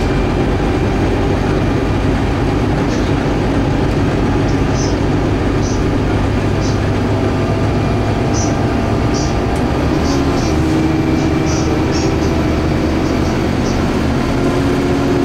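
Cabin noise of a Scania K280UB city bus under way: the rear-mounted diesel engine's drone over steady road and tyre noise, with the engine's pitch shifting about ten seconds in. Light, irregular ticks and rattles sit on top.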